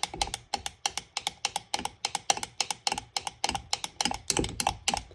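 Metal spoon stirring paint in a glass jar, clinking against the glass in a fast, even rhythm of about six clicks a second.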